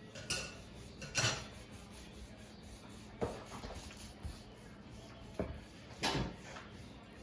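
Kitchen handling sounds: about five short knocks and clatters of utensils and a board or pan, the loudest a little after a second in and about six seconds in, as the rested brisket is readied for slicing.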